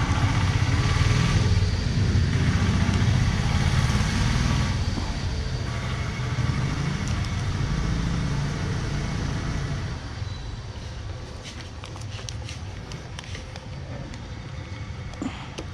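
A motor vehicle's engine runs with a low rumble for the first ten seconds or so, then fades away. After it, a few faint clicks come from a screwdriver prying at a plastic plug.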